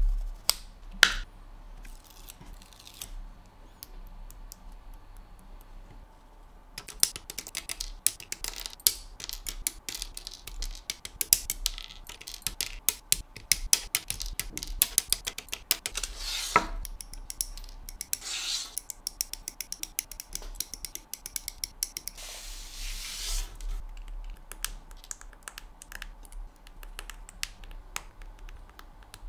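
Plastic model kit being worked by hand: many clicks and snaps as parts are cut from a plastic sprue and trimmed, with a few short scraping strokes, then sparser clicks as small plastic parts are pressed together near the end.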